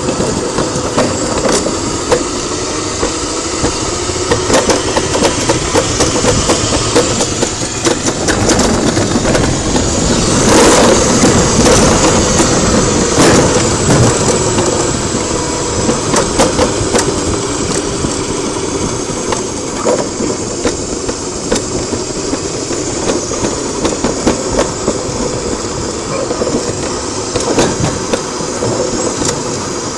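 Wheeled summer bobsled running down a stainless-steel trough track: a steady rolling noise of the wheels in the metal channel, loudest about a third of the way in.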